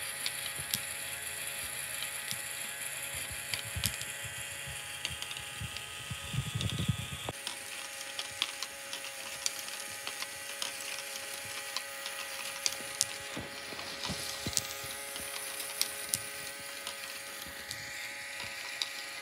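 Lego GBC ball elevator running: a Lego motor turning its gear train gives a steady whine, with irregular plastic clicks and clacks as the small balls are lifted and drop through the module. A low rumble stops about seven seconds in.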